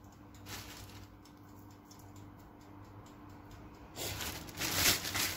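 Chopped coriander and parsley sprinkled by hand onto boiled potato chunks in a stainless steel colander: faint light pattering over a low hum, then louder rustling about four seconds in.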